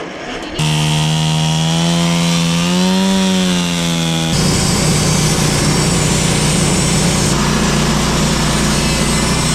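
Portable bandsaw sawmill's gasoline engine running under load as the blade cuts through an oak log. The sound changes abruptly about half a second in and again after about four seconds, and the engine's pitch rises briefly and settles around three seconds.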